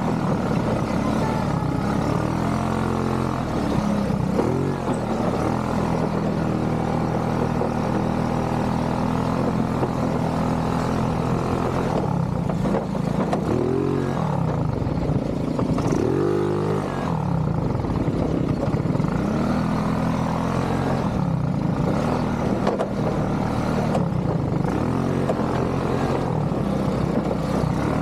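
ATV engine running, its pitch rising and falling repeatedly as the throttle is opened and eased.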